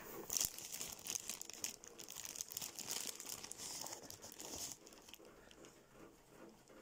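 Crinkling and rustling of a wrapper as a pastry is handled and torn, stopping about five seconds in.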